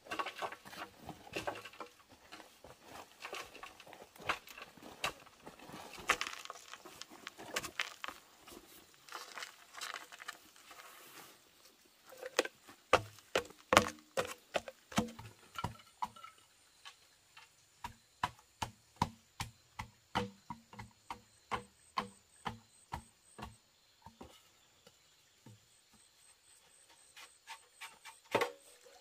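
Rustling and crackling for about ten seconds, then a long run of regular knocks, about two a second, with a few more knocks near the end.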